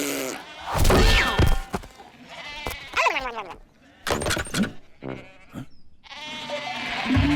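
Cartoon sheep bleating and making comic vocal sounds that slide up and down in pitch, with a few sharp knocks in the middle. Music with a steady bass line starts near the end.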